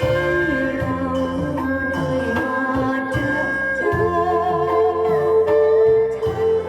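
Homemade Thai bowed fiddle (saw) with a metal body and a cat-skin soundboard playing a slow melody with vibrato, over a backing track with a repeating bass line.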